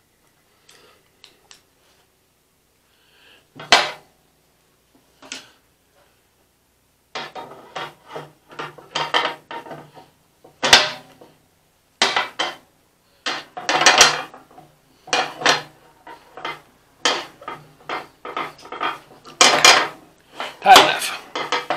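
Metal clinking and scraping of two pairs of pliers gripping a frost-free hydrant's steel operating rod and brass plunger head as the joint is tightened. A few scattered clicks at first, then from about seven seconds in a busy, irregular run of clinks and scrapes.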